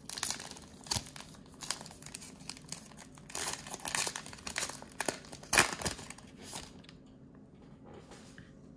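Black plastic wrapper of a Mosaic basketball card pack crinkling and tearing as it is pulled open and handled. The crackles come irregularly, the loudest about five and a half seconds in, and die down near the end.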